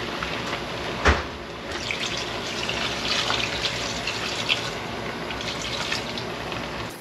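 Liquid poured from a steel bowl into a large pot of beef and onions cooking on the stove, a steady splashing hiss over the simmering pot. A single sharp knock about a second in.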